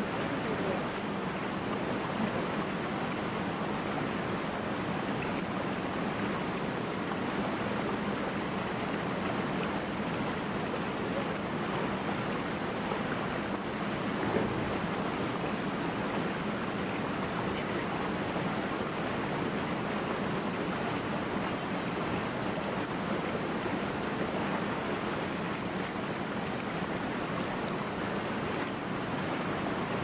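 Steady rush of water flowing over and around boulders in a shallow rocky stream.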